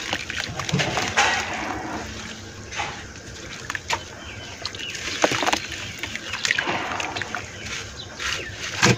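Hands squeezing and crumbling chunks of wet red dirt in a bucket of water, with irregular splashing and sloshing. The loudest splash comes near the end.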